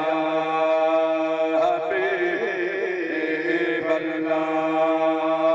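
A man's unaccompanied voice chanting a devotional naat into a hand-held microphone, drawing out long held notes, with a wavering, bending passage about a second and a half in.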